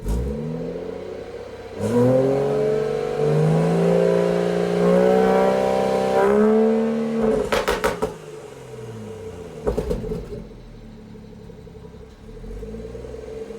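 BMW M240i's B58 turbocharged inline-six, fitted with a catless downpipe, revved up and held for about four seconds, then dropping back with a few sharp exhaust pops as the revs fall and settling to idle. This is the idle that the owner finds rough since the catless downpipe went in.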